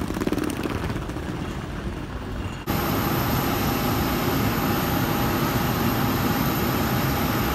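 Steady street traffic noise, a continuous vehicle rumble and hiss. About two and a half seconds in it jumps abruptly louder and fuller, then stays steady with a faint hum.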